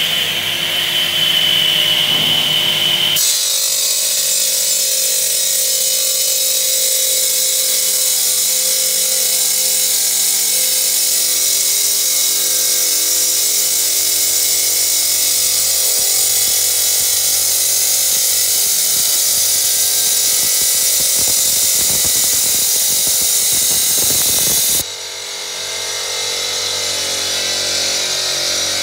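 Granite cutting machine's saw running and cutting stone. There is a steady high whine for the first three seconds, then a harsher continuous cutting noise, which suddenly eases a few seconds before the end.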